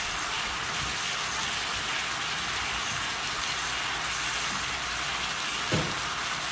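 Chicken strips, onions and green peppers sizzling in sauce in an electric skillet: a steady frying hiss, with one brief louder sound near the end.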